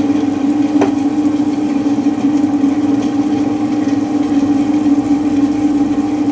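Tabletop wet grinder running steadily, its motor humming as the stone rollers grind soaked idli rice into batter. One brief click about a second in.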